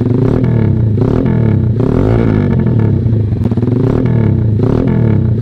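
Motorstar Z200 motorcycle with a short Austin Racing GP1R slip-on muffler, revved while standing, the engine pitch rising and falling several times. Very loud, which comes from the very short canister with its wide outlet.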